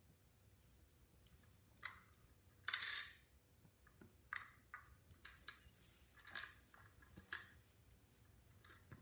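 Small plastic pieces of a Schleich rabbit hutch playset clicking and tapping as they are handled and fitted into place, with one brief louder scrape about three seconds in.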